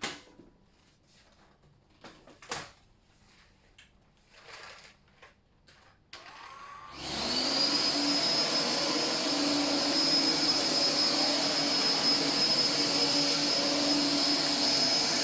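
A few faint knocks of handling, then the Philips FC6823 cordless stick vacuum switches on about seven seconds in. Its motor spins up with a rising whine and then runs steadily, loud, with a high whine over the rush of air.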